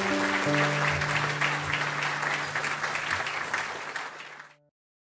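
Audience applauding, with held notes of closing music underneath; both fade out shortly before the end and cut to silence.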